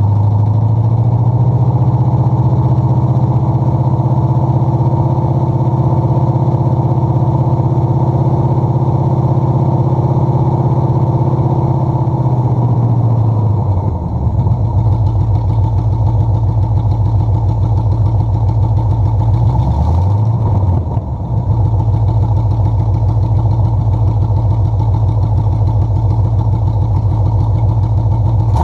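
Carbureted small-block Chevy V8 engine idling steadily at a fairly high speed. About halfway through the speed drops to a lower idle, and a few seconds later it dips briefly and recovers.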